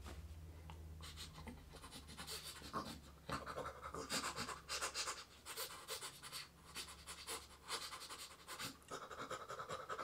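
A man imitating tooth-brushing with his mouth: rapid hissing, scrubbing strokes, starting about a second in.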